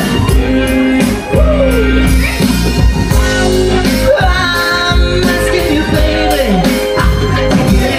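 Live band playing a song with a lead vocal: keyboard, electric guitar, bass guitar and drums under a singer's voice.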